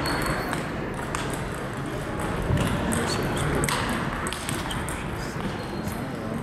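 Table tennis balls clicking off tables and rackets in quick, irregular succession during rallies at more than one table.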